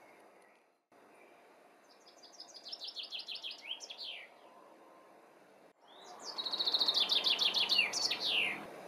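Songbird singing two phrases, each a quick run of repeated high notes that ends in a falling flourish, over a steady outdoor background hiss. The second phrase is the louder.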